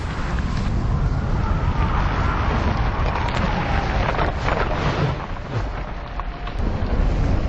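A loud, continuous deep rumble under a wash of noise, like the rolling aftermath of a large explosion, with faint sliding whistle-like tones over it.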